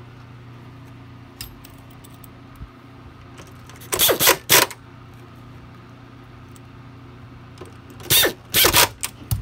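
Pneumatic (air) screwdriver driving screws into the vacuum's plastic housing: two short bursts of air-tool whirring about four seconds apart, each made of a few quick spurts.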